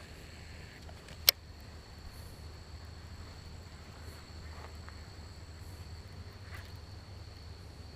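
Insects, crickets or similar, chirring steadily in a constant high-pitched drone, with one sharp click about a second in.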